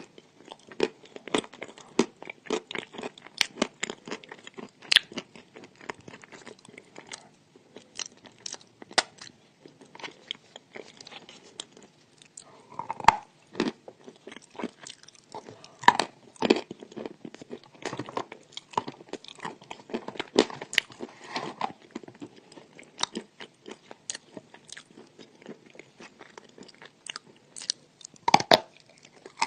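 A person chewing and crunching chalk close to the microphone: a dense, continuous run of dry crunches, with a few louder bites scattered through.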